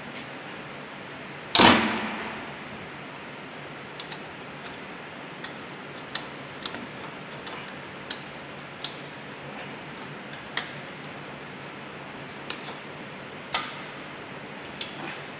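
12 mm spanner on a tight bolt of a lathe bed's feed-shaft bracket, steel on steel: one loud metallic clank about a second and a half in that rings briefly, then scattered light clicks of the spanner on the bolt head.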